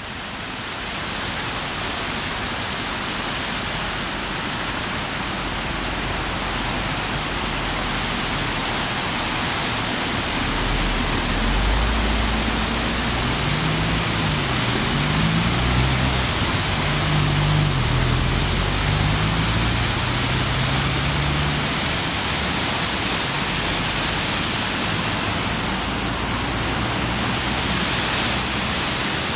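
Water pouring over the spillway of a small concrete dam into a rocky stream bed: a steady rushing noise that grows slightly louder after about ten seconds. A low wavering hum runs under it for several seconds in the middle.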